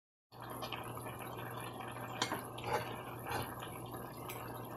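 Pot of brown stew chicken simmering on a stovetop, with soft bubbling and a few wet pops over a steady low hum.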